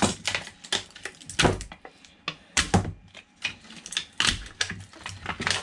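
Quick, irregular clicks and knocks from hands working on the plastic-framed 18650 cell modules of an opened e-bike battery pack.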